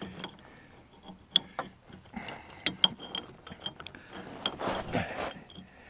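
Irregular metallic clicks and clinks of a puller and hand tools being handled and fitted onto a stuck part, with a short rustle near the end.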